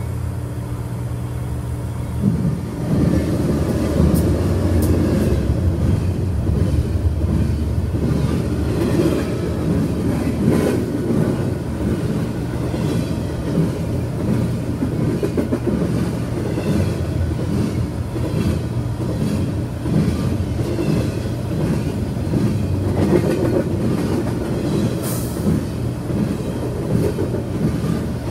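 Freight train passing close by: the diesel locomotive's engine runs steadily as it approaches, and about two and a half seconds in it goes by loudly, followed by a long string of railcars rolling past with rhythmic wheel clatter.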